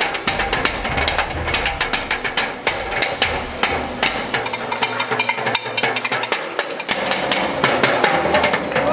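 Drums and percussion playing a fast, driving rhythm of sharp strikes, over deep drum beats that drop out briefly a little past the middle.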